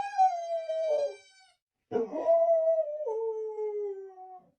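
A dog howling on cue, its 'I'm sorry' howl: two drawn-out, sing-song calls, the first gliding slightly down, the second longer and stepping down in pitch partway through.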